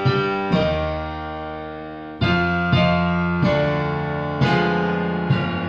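Keyboard music, piano-like: a slow run of chords, each struck and left to ring and fade, with a louder chord about two seconds in.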